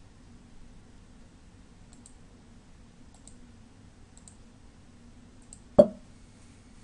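Computer mouse clicks: four light clicks about a second apart, then one much louder click near the end.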